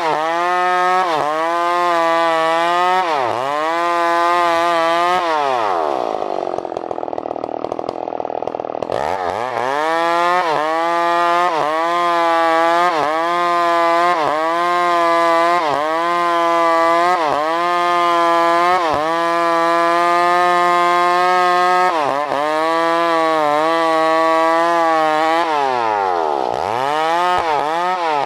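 New West PRO 888 two-stroke chainsaw engine revving. It blips up and down, drops back to idle for a few seconds, then holds at high revs for a long stretch with small dips in pitch. Near the end it falls to idle and revs up again.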